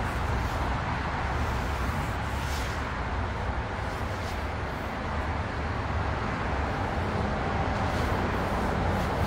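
Steady road traffic noise: a continuous low rumble with a broad hiss over it.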